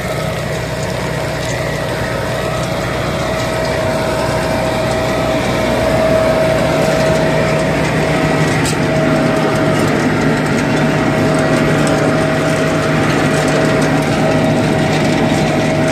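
Hasatsan H 2200 hazelnut harvester running steadily under load, a constant mechanical drone with a steady whine over it, getting a little louder about six seconds in.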